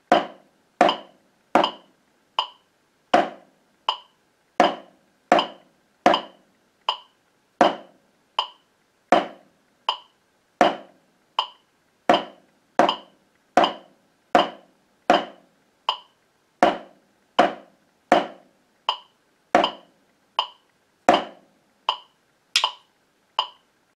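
Wooden drumsticks striking a practice pad in a simple quarter- and half-note rhythm, in time with a metronome clicking at 80 beats per minute, about one stroke every three-quarters of a second. It stops shortly before the end.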